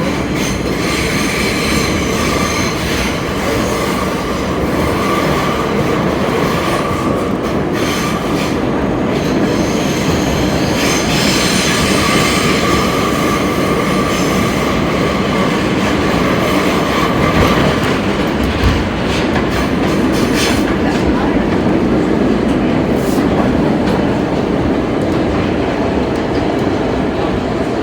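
R32 subway car running between stations, heard from inside the car: a steady rumble of wheels on rail, with the wheels squealing in a high ringing tone that comes and goes, and occasional clacks over rail joints.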